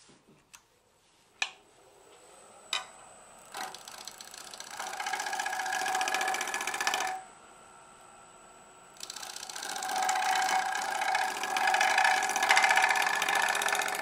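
Bowl gouge cutting a spinning natural-edge elm crotch blank on a wood lathe, making a fast rattling cut in two passes. The first pass runs from about three and a half seconds to seven seconds, and the second starts about nine seconds in and is the louder one. Two sharp clicks come before the first pass.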